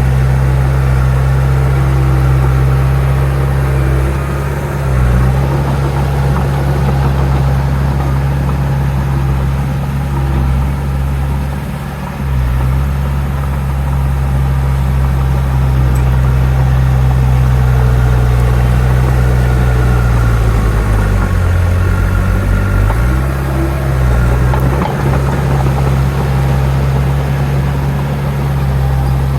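Bulldozer's heavy diesel engine running steadily under work, its note dipping briefly and shifting several times as the load changes.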